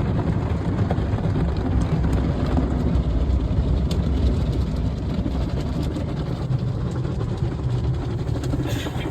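Steady low rumble of car wash machinery and water spray, heard from inside a closed car.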